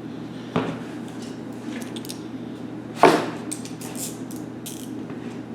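Metal tools and parts clanking and clicking as the snow blower engine is worked on: a sharp knock about half a second in, a louder clank about three seconds in, then a few light clicks. A steady low hum runs underneath.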